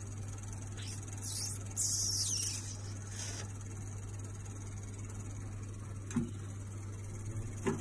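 Steady low electrical hum of an electric salamander grill heating a plate of potatoes with cheese. A short click about six seconds in as its control dial is turned, and another click near the end.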